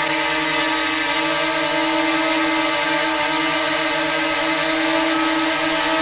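DJI Mini 2 quadcopter flying on its stock DJI propellers, held at a steady altitude. Its motors and props give an even, unchanging whine of several steady tones over a hiss.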